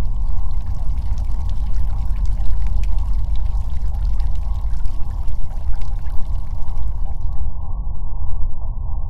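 Loud, muffled rushing of flowing water, heaviest in the low end. A fine crackle runs over it and stops about seven and a half seconds in.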